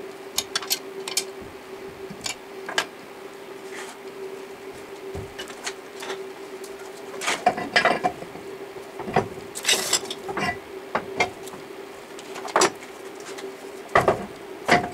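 Workshop handling noises: a scattered run of sharp metallic clicks and clanks as steel parts and hand tools are handled and set down on a bench, over a faint steady hum.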